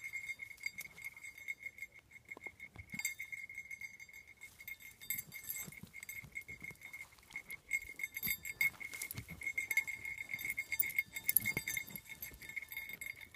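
Basset hound whining steadily and excitedly in one high, pulsing note while she digs at a burrow, over scratching and rustling of earth, pine needles and brush.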